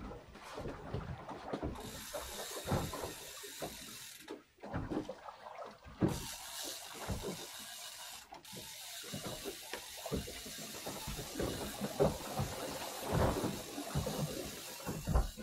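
Fishing reel being cranked in with a fish on the bent rod, its gears ticking irregularly.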